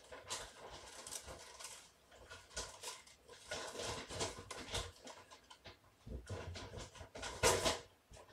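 Kittens moving about close by: soft, irregular pattering and rustling of paws on the floor and bedding, with a louder rustle near the end.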